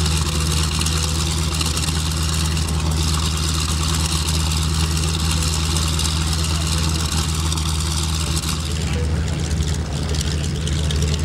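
Radial engine of a Tora Tora Tora replica Japanese Zero, a converted T-6 Texan, idling steadily with the propeller turning.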